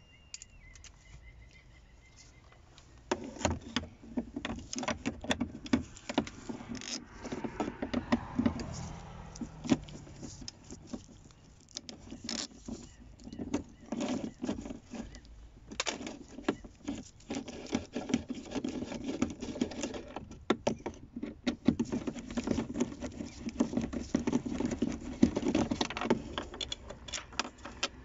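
Metal tool clicking and rattling in quick, irregular runs as the two Torx T30 screws in a car door panel's pull cup are undone, starting about three seconds in.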